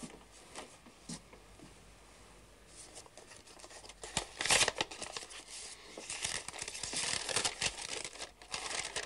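Paper crinkling and tearing in short irregular bursts, starting about three seconds in.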